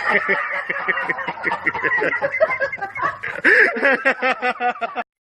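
A person laughing in quick repeated bursts, cut off abruptly near the end.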